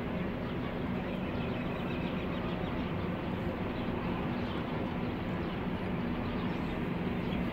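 Steady outdoor background: an even rushing noise with a faint, constant low hum and no distinct events.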